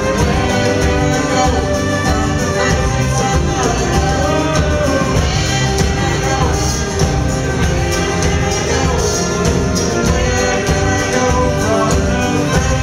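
Live worship band playing a song with acoustic guitar, bass guitar, keyboard and drums, heard in the room.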